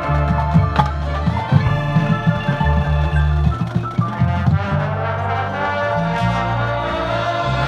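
Marching band playing: sustained brass chords over a moving bass line, with many sharp drum and percussion hits.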